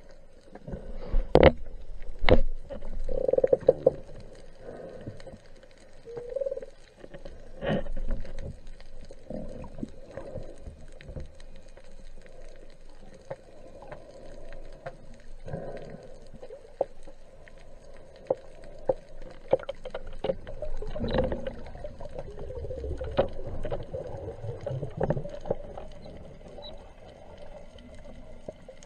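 Muffled underwater ambience: a low wash of moving water with scattered sharp clicks and a few short gurgles.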